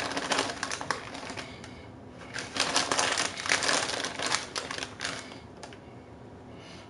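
A plastic bag of shredded cheese crinkling and rustling as a hand reaches in and pulls out cheese. The crackling comes in two spells: a short one at the start and a longer one from about two and a half to five seconds in.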